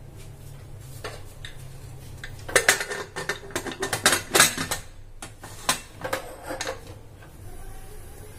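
Aluminium pressure cooker lid being set on and closed: a run of metallic clanks, clicks and scrapes lasting about four seconds, starting a couple of seconds in.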